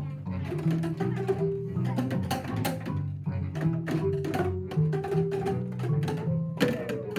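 Class of children striking plastic boomwhacker tubes in rhythm: many short, hollow, pitched hits over held low notes of a musical accompaniment.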